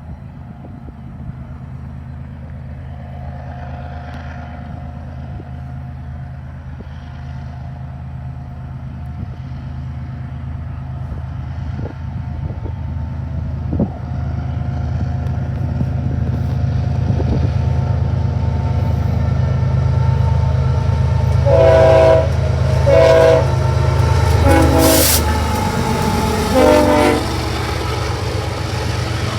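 GE ES44AC diesel locomotive approaching, its engine rumble growing steadily louder, then four blasts of its air horn in quick succession near the end.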